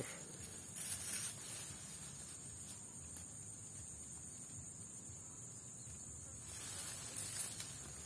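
Rice stalks and leaves rustling as they are brushed aside, in two short bursts about a second in and near the end, over a faint steady high hiss.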